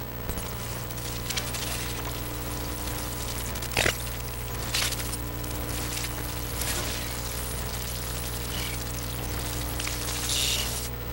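A steady low electrical hum under a constant hiss, with a few short clicks and crackles and a brief swell of hiss near the end.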